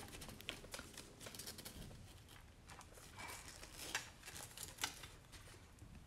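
Quiet room tone with a few faint, short clicks and taps scattered through it.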